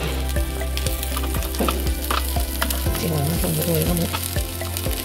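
Small dried fish crackling and sizzling as they roast on a hot steel plate over a gas burner, with metal tongs clicking against the plate now and then.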